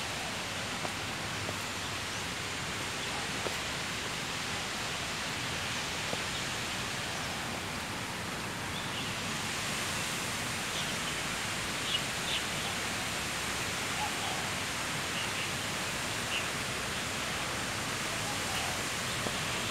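Steady rushing outdoor background noise, with a few short high chirps scattered through the second half.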